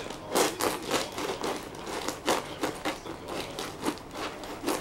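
A woven straw mat scratched and rustled in short, irregular bursts as a cat paws at it.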